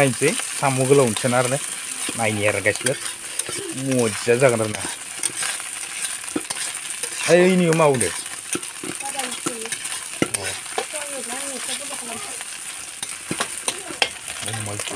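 Food sizzling in hot oil in a wok while a spatula stirs it, scraping and tapping against the pan. A pitched, voice-like sound comes and goes over it at times.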